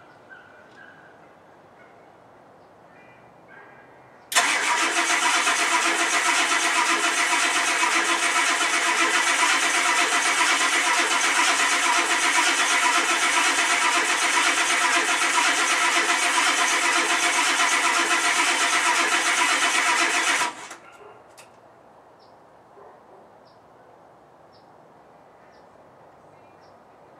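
1991 Ford F-250's 7.3-litre IDI diesel cranked by its starter on a cold start without catching: steady cranking for about sixteen seconds that starts suddenly and cuts off suddenly, with no firing.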